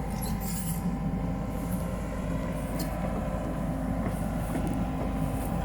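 Komatsu PC78UU excavator's diesel engine running steadily.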